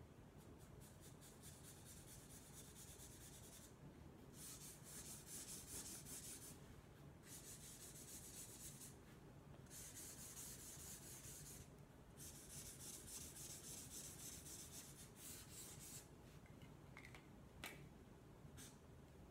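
Sharpie felt-tip markers rubbing on flip-chart paper as colour is filled in with quick strokes, faint, in stretches of a few seconds with short pauses between. A few light clicks near the end.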